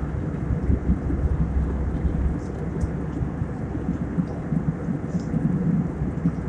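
Steady low rumble of an aircraft cabin in flight: engine and airflow noise heard from inside the plane.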